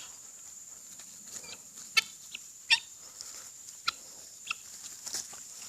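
Birds giving a few short, soft calls, spaced irregularly about once a second.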